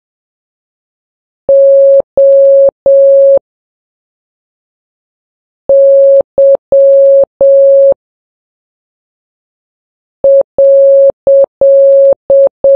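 Morse code practice tone: a single steady electronic beep keyed at a slow 3 words per minute, in long dashes and short dots. Three dashes come about 1.5 s in (the letter O), then dash-dot-dash-dash (Y), then near the end a group beginning dot-dash-dot-dash.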